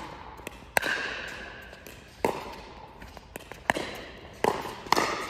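Pickleball rally: paddles hitting the plastic ball back and forth, about five sharp pops, each with an echo from the large indoor hall.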